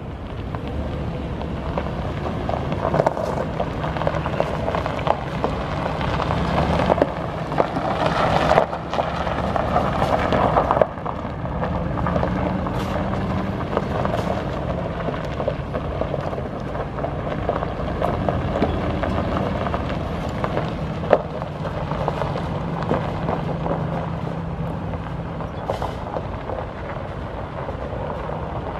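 Ford F350 Super Duty's 6.2-litre gas V8 running, its pitch rising and falling a few times, with a rushing noise over it. There are a few sharp knocks in the first half and a sudden drop in level about eleven seconds in.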